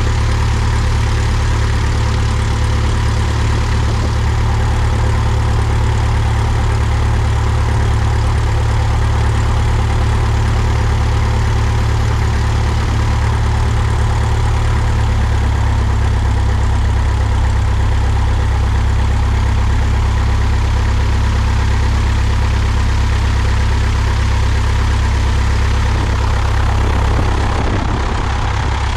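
Cessna 172's piston engine and propeller running steadily at low taxi power, a strong low drone heard from outside the cabin under the wing. The level eases slightly near the end.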